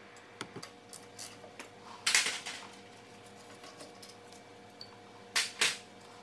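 Small metallic clicks and clinks of a hand tool working the rear brake caliper bolts, with a louder rasping burst about two seconds in and two more near the end.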